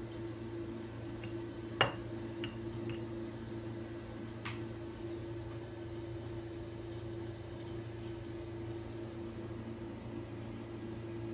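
Steady low mechanical hum, with a few sharp clicks and knocks, the loudest about two seconds in.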